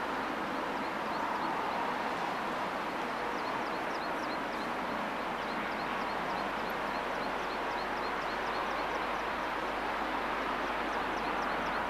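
Distant three-cylinder Peppercorn A1 Pacific steam locomotive 60163 Tornado working a train steadily up a long climb, heard across open country as an even, unbroken exhaust sound. Over it, a small bird chirps a few times a second.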